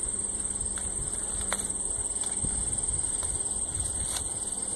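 Insects trilling steadily at a high pitch, with a few faint scattered clicks.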